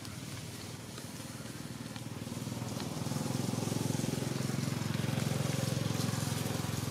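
Motor vehicle engine running with a low, steady, fast-pulsing rumble that grows louder about two to three seconds in, as of a vehicle passing close by.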